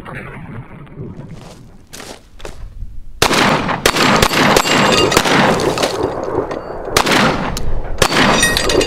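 Beretta 1301 Tactical 12-gauge semi-automatic shotgun fired several times in quick succession, starting about three seconds in. Hanging steel plate targets ring high and metallic after the hits.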